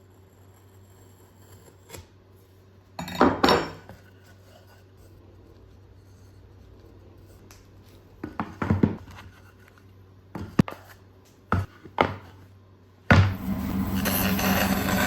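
Hard wooden and metal objects knocked and clattered while being handled in a workshop, a few separate knocks and short clatters. About thirteen seconds in, a loud, steady, noisy running sound starts suddenly and carries on.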